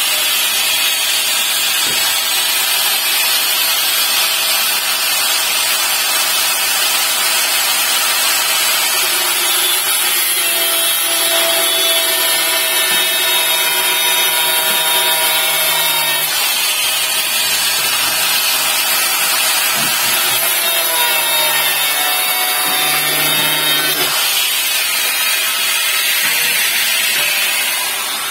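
Handheld angle grinder running continuously under load on metal, its whine shifting up and down in pitch as the disc bears on the work. It winds down near the end.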